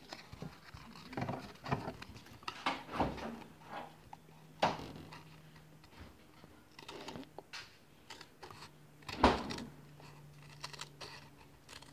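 Scissors cutting through the cardboard of an empty matchbox: irregular snips and scrapes, the loudest a little before the middle and about three-quarters in.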